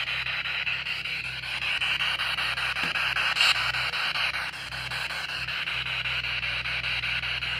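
SB7 spirit box sweeping the FM band in reverse at a 150 ms sweep rate: a steady hiss of radio static, chopped rapidly as the receiver jumps from frequency to frequency. There is one brief louder burst about three and a half seconds in.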